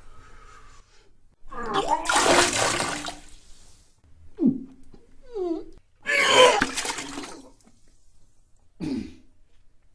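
A person retching and vomiting into a toilet: two heavy heaves with splashing noise, and short gagging groans between them.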